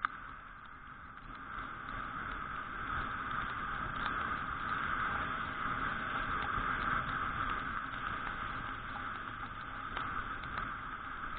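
Riding noise picked up by an onboard camera on a Suzuki Address V125G scooter on a wet road: a steady rushing hiss of wind, tyres and engine that grows louder a couple of seconds in and eases slightly near the end. A single sharp click comes at the very start.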